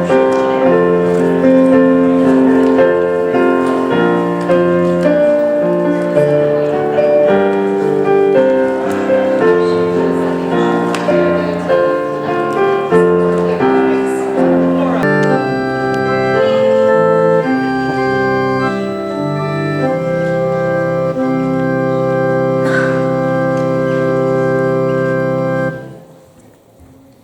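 Organ music: a prelude of moving chords that slows into long held chords, ending on a sustained final chord that stops abruptly shortly before the end.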